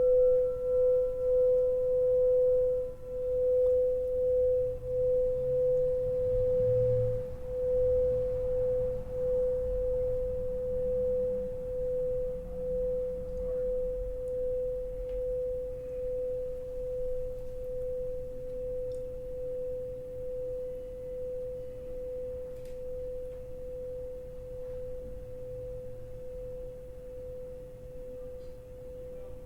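Pink gold alchemy crystal singing bowl ringing after a strike: one steady pure tone that slowly fades with a gentle wavering pulse. Its higher overtones die away in the first few seconds.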